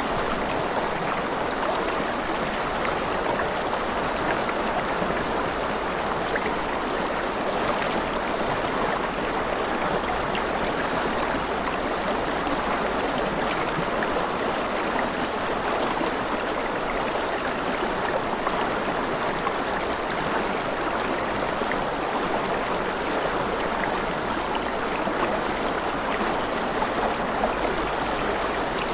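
Rushing river water flowing steadily: an even, unbroken rush with no change over the whole stretch.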